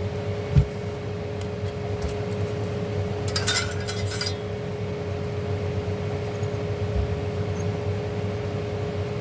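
A low thump about half a second in and a short run of clinks about three and a half seconds in, from small parts being handled on a workbench, over a steady background hum.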